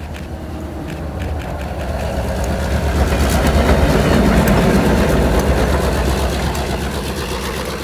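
Diesel locomotives pushing a railroad snow plow passing close by: a heavy low engine rumble that swells to a peak midway and then eases off, with a rushing hiss of thrown snow over it.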